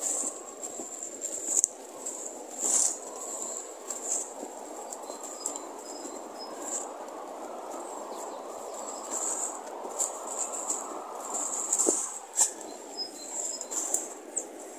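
Footsteps and rustling of a hiker walking through grass on a hillside path, with scattered brief knocks, over a steady low rushing background and a few faint high chirps.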